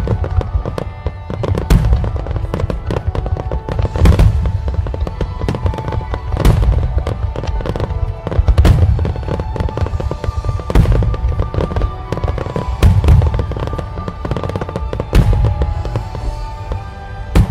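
Fireworks display: aerial shells bursting with deep booms about every two seconds amid dense crackling, with music playing alongside.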